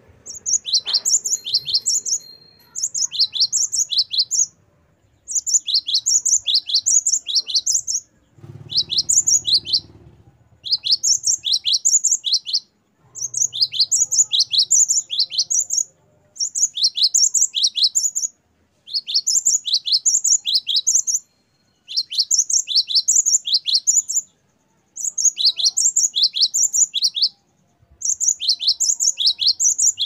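Cinereous tit (gelatik batu, the Asian form of the great tit) singing: high, quick repeated notes, about four a second, in phrases of a couple of seconds broken by short pauses, over and over.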